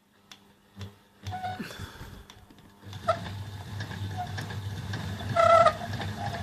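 Converted sewing machine's electric motor, run from its foot pedal to turn a rod: a couple of clicks, then from about three seconds in a steady low hum with short higher whines over it.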